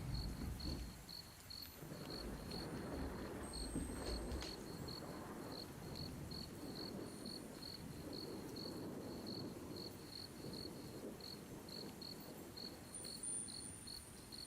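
A cricket chirping steadily, a short high chirp about two to three times a second, over faint low background noise.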